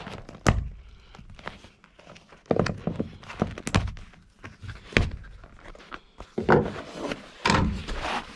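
Needle-nose pliers prying staples out of a plastic armrest base and the vinyl cover being pulled off its foam, with a series of uneven thunks, knocks and scrapes as the hard plastic console lid is handled against a wooden deck.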